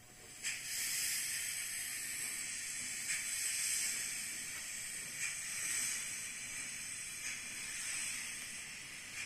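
Steam hiss played by the LokSound 5 sound decoder in a Fleischmann BR 03 model steam locomotive: a steady high hiss that starts suddenly, with a sharper puff about every two seconds.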